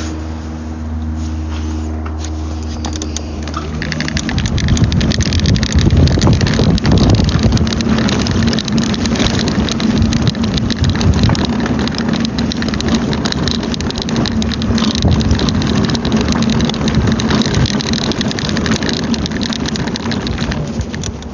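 A low steady hum. About four seconds in, loud rumbling, crackling noise on the phone's microphone takes over, as the phone is covered and handled.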